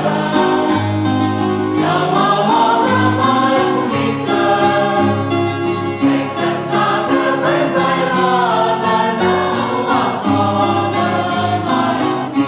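Background music: a song with voices singing together over guitar and other plucked strings, with a steady bass line.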